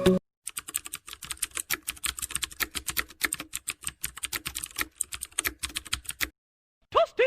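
Rapid, irregular keyboard-typing clicks for about six seconds, stopping abruptly. A brief swooping tone follows near the end.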